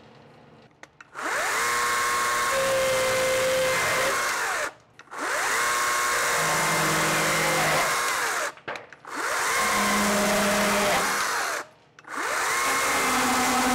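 Hychika 40V brushless battery chainsaw cutting through hardened red oak in four runs of about three seconds each. Each run spins up, holds a steady high whine through the cut, then winds down when the trigger is let off, and the last run is still going at the end.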